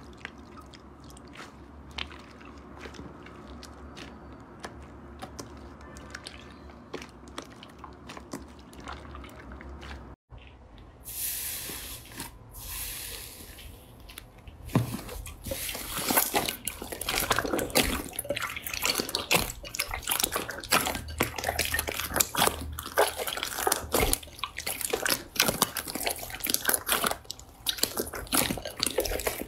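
Hands squeezing and kneading slime: faint sticky clicks at first, then, after a short hiss, a dense run of wet popping and crackling as a pink inflated 'fake water' slime is pressed in a bowl and its air bubbles burst.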